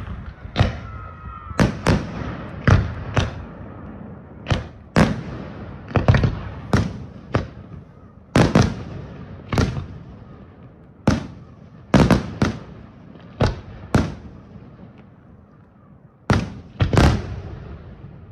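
Aerial firework shells bursting in a rapid, irregular string of about twenty sharp bangs, many in close pairs, each trailing off in an echo. There is a brief lull shortly before the end.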